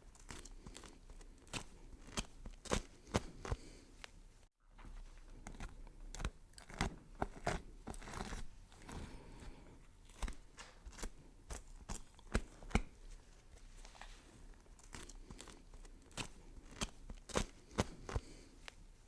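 Knife chopping vegetables on a cutting board: a string of sharp, irregular knocks, broken by a moment of silence about four and a half seconds in.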